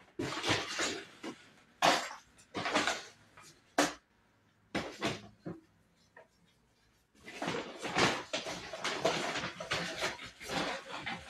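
Trash being crammed into a trash can: irregular bursts of rustling and crunching, a pause of about three seconds near the middle, then denser, steadier crunching toward the end.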